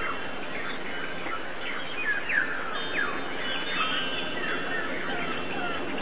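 Many small birds chirping together: a dense chorus of quick, short, falling chirps over a steady hiss.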